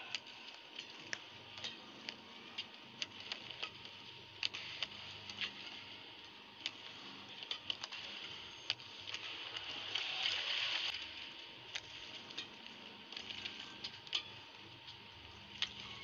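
Rackets hitting a shuttlecock in badminton rallies: sharp, irregular hits, often less than a second apart. A burst of crowd clapping swells about ten seconds in, after a point is won.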